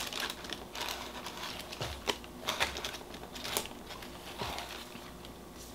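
Packaging being handled: short crinkles and taps of plastic wrapping, scattered and irregular, thinning out near the end.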